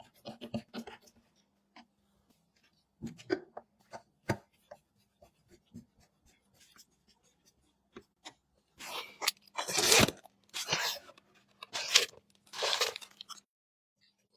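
Hands handling PC build parts: scattered small clicks and taps, then four loud rustling, crinkling bursts in the second half. A faint steady hum runs underneath until just before the end.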